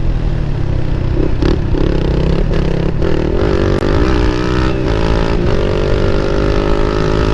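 Motorcycle with an Akrapovic aftermarket exhaust running under way. The exhaust note rises in pitch between several short breaks in the first half, then holds steady, over heavy wind rumble on the microphone.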